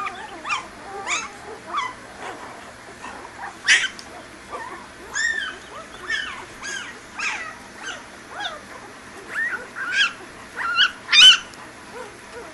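Newborn puppies squeaking and whimpering while they nurse: a steady string of short, high-pitched squeals, about one or two a second, with the loudest couple near the end.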